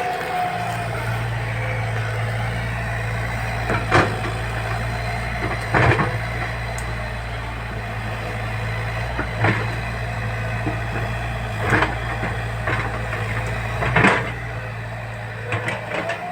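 Diesel engine of a JCB backhoe loader running steadily under work, with about six sharp knocks at irregular intervals, loudest about four, six and fourteen seconds in.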